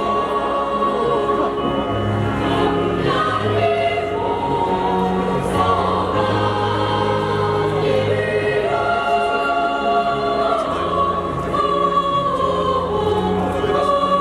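Children's choir singing, with long held notes.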